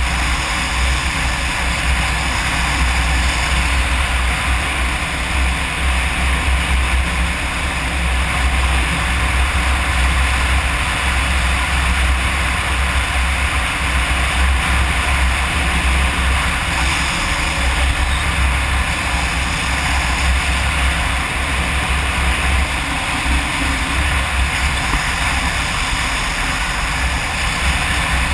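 Kawasaki KLR 650 single-cylinder dual-sport motorcycle running steadily at road speed, mixed with wind rushing and buffeting over the bike-mounted camera's microphone.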